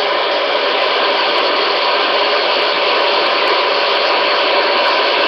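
Loud, steady white-noise hiss, even and unchanging, played as the backdrop for a spirit-voice (EVP) recording session.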